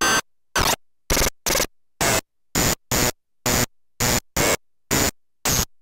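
Hand-built analog noise machine putting out short, harsh bursts of static, about two a second, each cut off sharply with silence between. A faint high whistling tone runs through some of the bursts.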